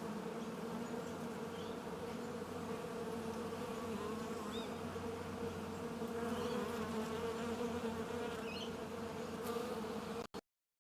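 Insects buzzing in a steady low drone, with a few faint high chirps from birds; the sound cuts off suddenly near the end.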